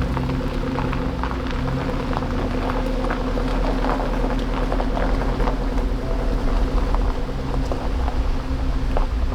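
A vehicle engine running steadily, with a hiss and scattered small clicks over it.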